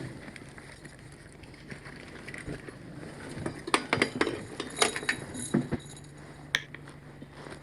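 Small metal items clinking and rattling, a quick run of sharp clinks from about three and a half seconds in, ending with one last clink near six and a half seconds.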